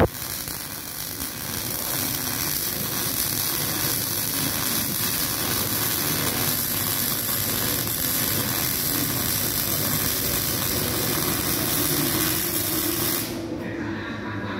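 MIG welding arc with 0.9 mm wire running one long continuous bead, a steady even hiss that cuts off suddenly near the end when the trigger is released.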